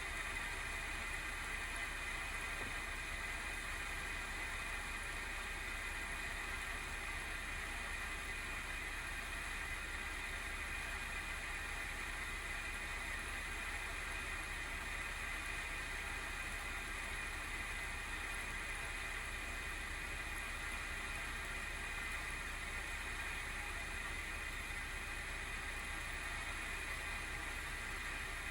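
Single cooling fan of an ASUS GeForce RTX 3060 12GB Phoenix graphics card running under benchmark load with a steady whir and a hissy band of abnormal noise. The noise is the sign of a failing fan, which the owner puts down to either a wobbling shaft or its bearing running out of oil.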